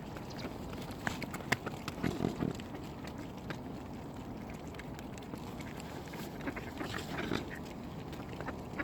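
Waterfowl, ducks and swans, calling at close range while being fed: short low calls about two seconds in and again near the end, with a few sharp clicks between, over a steady outdoor hiss.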